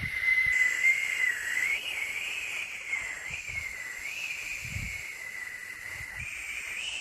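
Steady white-noise hiss with a high whistling whine that wavers slightly up and down in pitch, like a running motor appliance, under a few faint low thumps.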